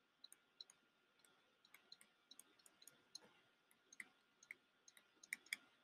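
Near silence broken by about a dozen faint, irregular clicks of a pen stylus tapping a drawing tablet during handwriting.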